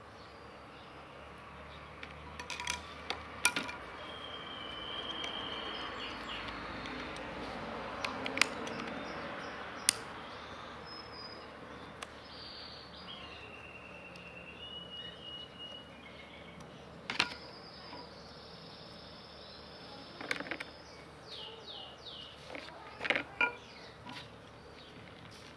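Scattered sharp metal clicks and taps from a chainsaw carburetor body and a screwdriver being handled and worked on a small screw. Under them is a faint hiss, with a few short, steady high tones now and then.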